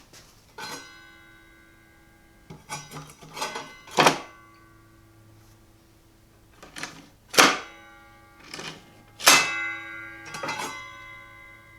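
Metal parts knocked and clattered together, several sharp knocks about a second or two apart, each one leaving a ringing tone of the same pitch that dies away.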